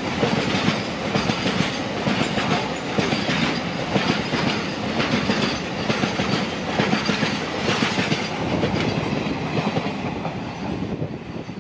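Container freight train's flat wagons rolling past close by: a steady rumble of wheels on rail with repeated clickety-clack over the rail joints. It fades as the end of the train passes near the end.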